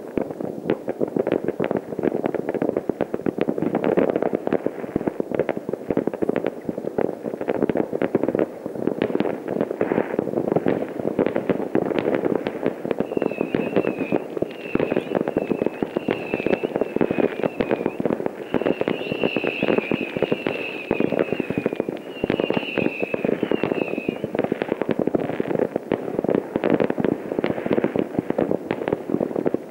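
Distant fireworks going off at many points at once: a dense, unbroken rattle of bangs and crackles. A high, wavering whistle comes and goes through the middle.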